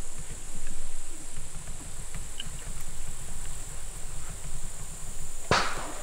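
Steady high-pitched chirring of insects over a low rumble, then a single sharp knock near the end.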